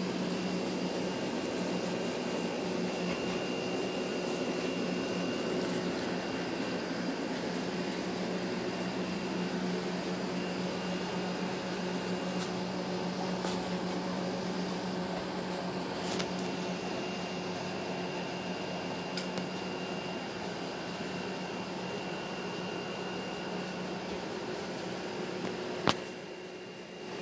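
Steady mechanical hum of a small motor, like a room fan or air conditioner, with a faint high whine over it. A single sharp click near the end.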